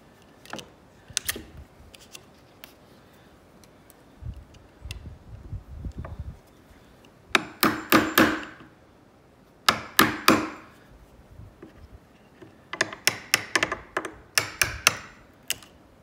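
Wood chisel being struck into a wooden door jamb, cutting out the mortise for the strike plate: sharp taps and knocks in quick clusters. The loudest runs come just past halfway and through the last few seconds.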